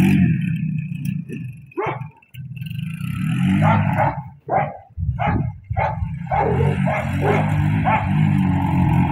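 A dog barking in short, sharp single barks, several times, over a small ATV engine running and revving as the quad circles.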